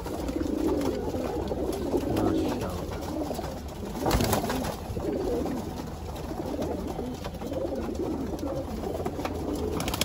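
A loft full of domestic pigeons cooing together, many overlapping low coos. A short thump sounds about four seconds in.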